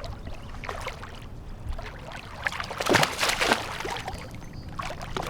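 A hooked bass splashing and thrashing at the boat's side, loudest about three seconds in, over a steady low rumble from the boat.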